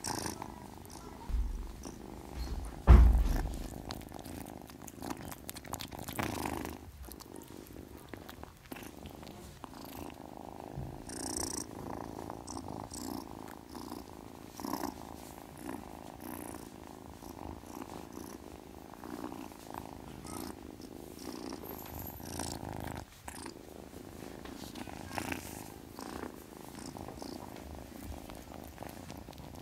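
British shorthair kitten purring steadily while dozing, with a loud, low thump about three seconds in.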